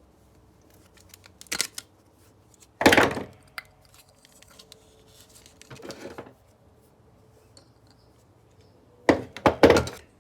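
Hand-held vacuum being pried apart with pliers: scattered knocks and clatters of plastic and metal parts. The loudest comes about three seconds in, and a pair of knocks comes near the end.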